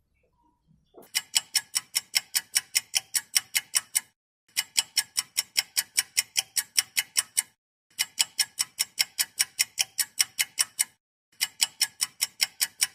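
Ticking-clock sound effect: fast, even ticks at about six a second, starting about a second in and running in stretches of about three seconds with short breaks between them.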